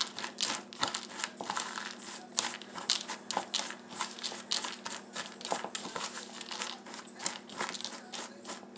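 Slivered almonds and brown sugar being tossed together by hand in a small ceramic bowl: an irregular run of light clicks and rustles as the dry nut slivers rub and knock against each other and the bowl.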